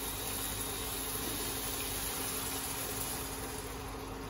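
Steady sizzling hiss of a frying pan on an induction cooker while a white liquid is poured into it, with a faint steady hum underneath.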